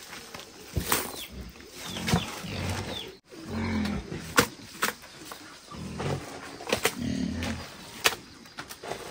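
Hands scooping and squeezing wet, fibrous pulp in a plastic bucket and on a plastic sheet: irregular sharp clicks and crackles, with low rumbling patches between them. The sound cuts out briefly about three seconds in.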